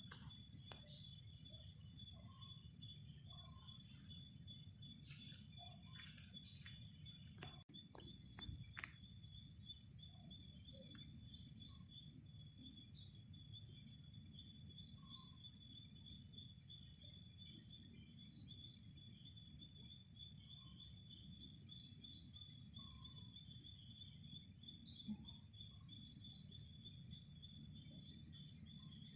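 Night insect chorus: a continuous high-pitched trilling from crickets, with a shorter chirp repeating about once a second. A low steady rumble runs underneath.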